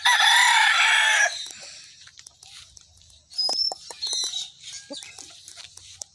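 A gamefowl rooster crows loudly for about a second and a half at the start. After that come softer scratching and rustling sounds as a rooster dust-bathes in loose soil, with a few faint high chirps.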